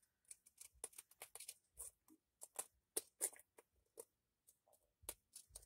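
Scissors trimming the edge of a paper-covered book: a string of faint, short snips at an uneven pace, over a dozen in all.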